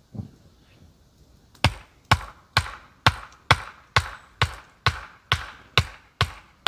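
Repeated hard blows of a hand tool striking something solid, about two a second, beginning about a second and a half in and keeping a steady rhythm.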